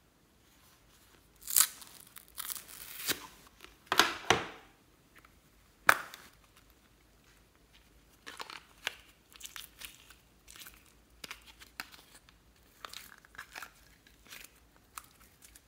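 Plastic toy cake-slice cases being pried open, with several loud sharp snaps and crackles in the first half, then softer sticky crackling as pink slime is peeled and pulled out of them.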